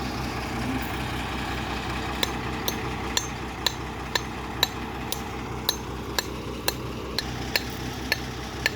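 Vehicle engine idling steadily. From about two seconds in, a run of sharp metallic clicks or taps comes about twice a second, a dozen or so in all.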